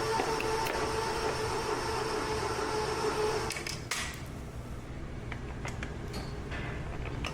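A steady mechanical hum with a few sharp clicks and knocks; about four seconds in the hum drops away, leaving quieter scattered clicks.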